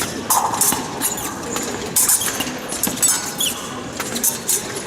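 Fencing shoes squeaking on the piste during footwork, with several sharp clicks and clinks, the loudest about two and three seconds in.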